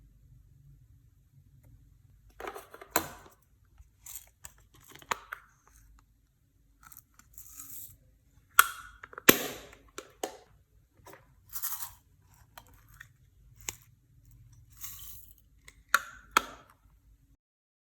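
Irregular handling noises from small items and containers being readied for mixing into slime: sharp clicks and taps with short crinkling or scraping sounds in between.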